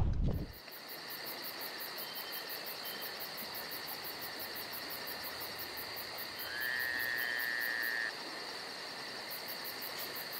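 Night insects trilling steadily: a fast high pulsing over a steady high hum and faint hiss. About six and a half seconds in, a short tone rises and holds for about a second and a half.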